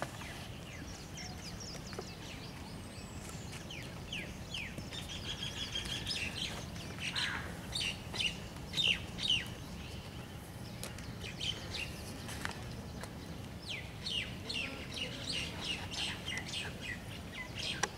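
Small birds chirping in many short, high calls that come in clusters, thickest a few seconds in and again near the end, over a steady low background noise.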